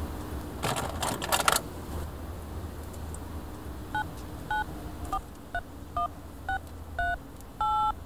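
Phone keypad dialing tones: seven short two-tone beeps about half a second apart, then a longer one near the end, as a number is dialed. A short crackling noise comes about a second in.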